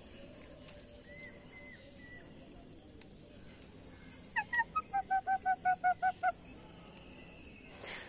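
A pet green parakeet calling: a few faint high notes, then about two seconds from the middle a quick run of about eleven short, evenly repeated calls at roughly five a second.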